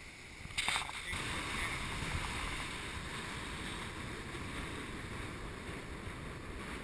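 Surf breaking and wind across an action camera's microphone, a steady, even rushing hiss. It is preceded by a brief clatter about half a second in.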